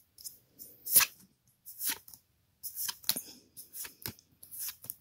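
Pokémon trading cards being handled and flicked against one another: an irregular series of short, dry swishes and snaps, the loudest about a second in.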